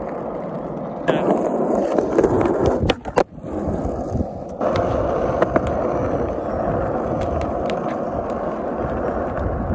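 Skateboard wheels rolling over rough, cracked asphalt, a steady loud rolling noise. It briefly drops away with a few sharp clacks about three seconds in, then rolls on.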